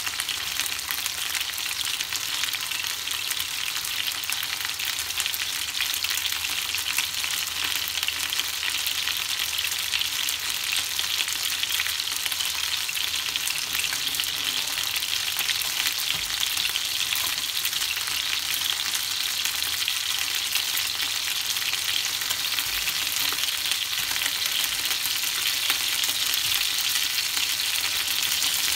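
Chicken wings sizzling as they pan-fry in a nonstick frying pan: a steady crackling hiss that holds at an even level throughout.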